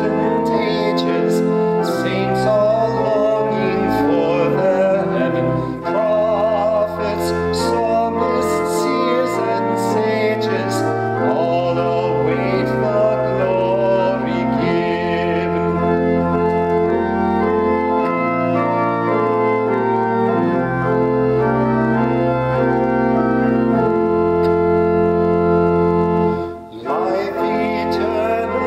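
Organ accompanying a hymn, with voices singing along over sustained chords that change in slow steps. Near the end the music breaks off for a moment, then the next verse begins.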